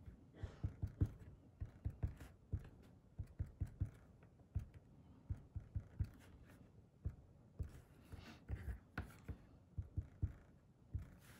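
Fat tip of a dual-tip marker tapped again and again onto paper on a tabletop, dotting a pattern: soft, irregular taps a few times a second, with short pauses.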